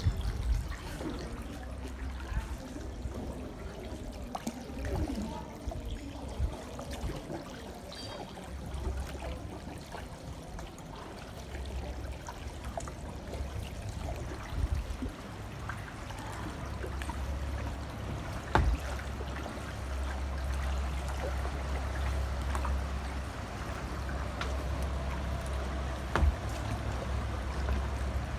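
Kayak paddling on canal water: paddle blades dipping and water trickling and splashing off them, over a low rumble that comes and goes. There are two sharp knocks, one about two-thirds of the way in and another near the end.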